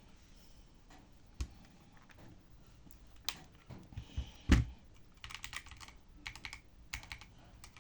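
Monsgeek ICE75 mechanical keyboard with Akko Crystal linear switches being typed on: a few separate key strikes, the loudest a heavy thump about four and a half seconds in, then quick typing from about five seconds in. Slightly clacky overall.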